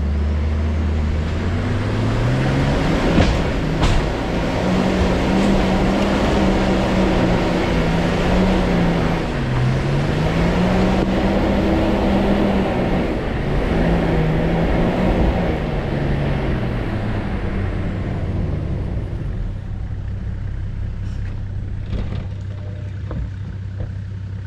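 A vehicle's engine revs up to climb a rocky track, with two sharp bangs a few seconds in as its steel rims smash into a rock. The revs rise and dip while it climbs, then drop back to idle about 17 seconds in.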